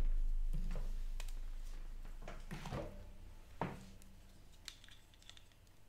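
Scattered clicks and taps of small plastic toy pieces being handled on a tabletop, over a low hum that slowly fades out during the first few seconds.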